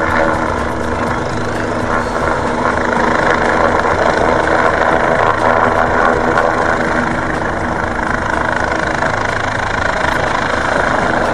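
OH-58D Kiowa Warrior helicopter flying past close by: a steady, loud turbine whine and rotor noise.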